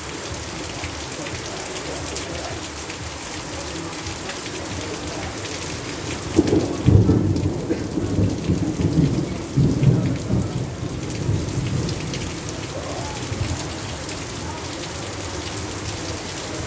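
Heavy rain falling steadily. About six seconds in, a low rumble of thunder rises and rolls on in uneven swells for several seconds, then fades back into the rain.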